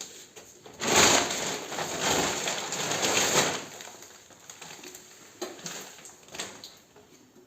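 Packaging being handled, crinkling and rustling loudly for about two and a half seconds, then a few light clicks and rustles.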